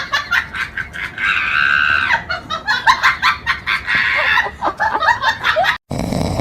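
Rapid, short, pitched animal calls, squawk-like, with one longer held call about a second in. About six seconds in they cut off abruptly to a steady noisy hiss.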